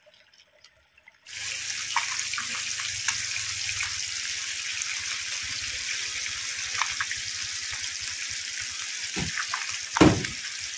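Small river fish deep-frying in a pot of oil on a portable gas stove: a steady sizzle with scattered crackling pops that starts suddenly about a second in. A couple of low thuds near the end.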